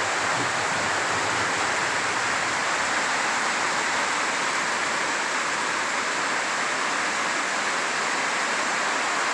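Steady heavy rainfall, an even unbroken hiss of falling rain.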